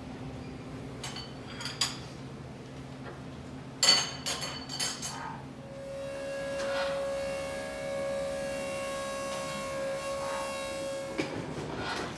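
Metal and crockery clinks at a buffet counter, a few light ones and then a louder clatter about four seconds in. After that, a machine drone with one steady held tone runs for about five seconds and cuts off suddenly near the end.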